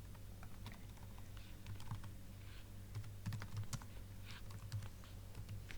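Computer keyboard typing: irregular, fairly faint keystrokes over a low steady hum.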